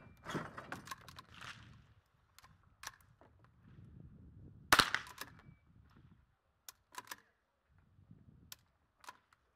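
A single sharp rimfire rifle shot about five seconds in. Lighter clicks and knocks come before and after it.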